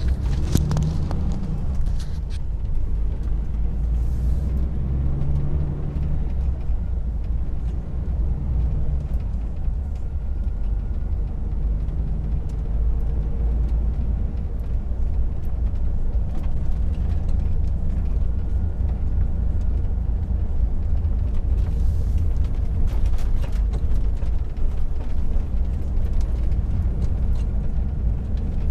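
Steady low rumble of a car being driven, heard inside the cabin: engine and road noise.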